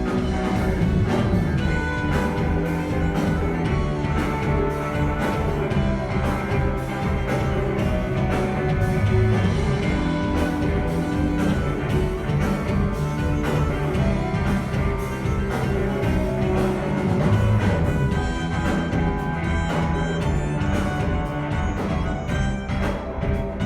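Band music played loud through a concert PA system during a sound check, with a steady beat and sustained low notes throughout.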